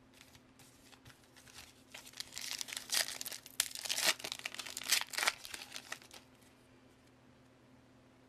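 Foil wrapper of a 2015 Panini Contenders trading-card pack being torn open and crinkled by hand. The loudest crackling comes in the middle and stops about six seconds in.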